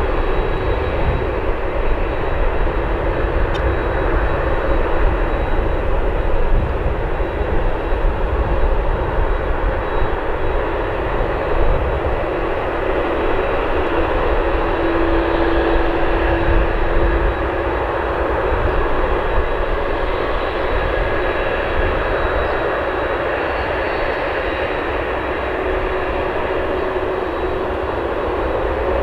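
Jet airliner engines, a loud, steady noise with a few faint whining tones through it, easing a little just past halfway.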